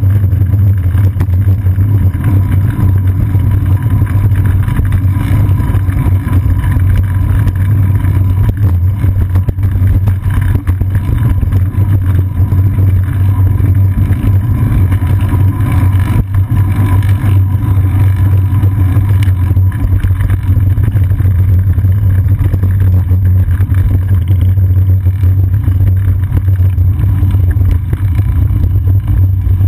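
Wind and road rumble on a seat-post-mounted GoPro Hero 2 in its housing while the bicycle is ridden: a loud, steady low rumble.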